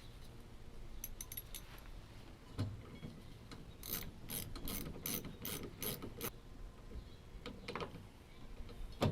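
Ratchet wrench clicking as a nut is run on during refitting of a car door handle carrier: a run of about eight even clicks, three or four a second, with a single knock shortly before.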